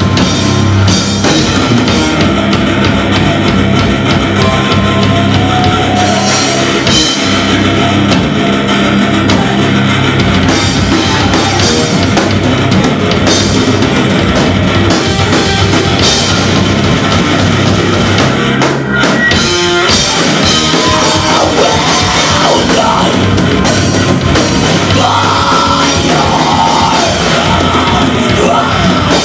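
Heavy metal band playing live and loud: distorted electric guitar, bass guitar and a pounding drum kit in a continuous heavy riff.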